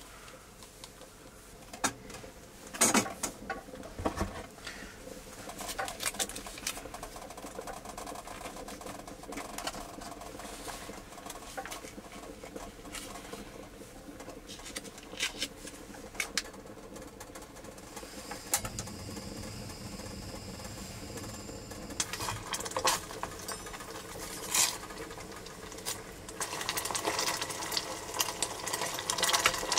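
Cooking handling sounds: a metal spoon, steel bowl and stainless pot clinking and knocking now and then, as sauce is emptied from a pouch into the pot. Near the end the spoon stirs and scrapes in the pot, denser and louder.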